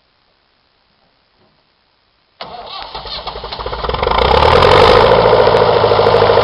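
Leyland 255 tractor's four-cylinder diesel engine starting up about two seconds in: a sudden start of sound that builds over a second or so into a steady, evenly pulsing run.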